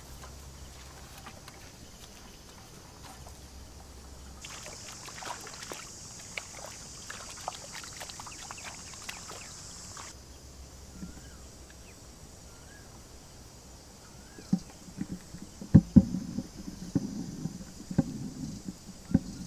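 Wet splashing and squelching of mud and shallow water, with a low rumble of wind on the microphone at the start and a high steady hiss with scattered clicks from about four to ten seconds in. The splashing and sharp wet hits grow loudest in the last few seconds.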